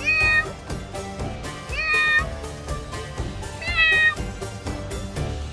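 Bobcat calling: three short, meow-like cries about two seconds apart, each rising at its start and then held, over background music.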